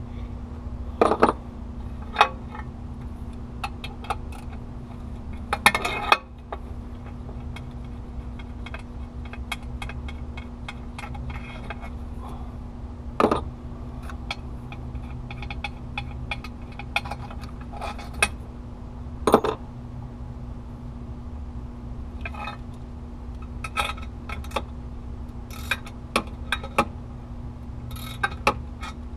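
Irregular metallic clinks and clanks of hand tools and loose bolts being handled and set down during engine work, a few of them louder knocks, over a steady low hum.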